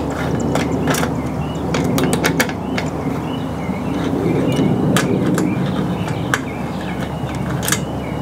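Sharp clicks and clinks of hand tools working the bolts of a motorcycle's gas cap, scattered irregularly over a steady low rumble.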